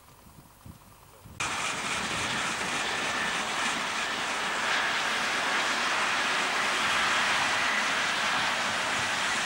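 Full-size suburban diesel railcar train running past: a steady rushing drone of engines and wheels on the rails, with a faint high whine. It starts abruptly about a second and a half in, after near quiet.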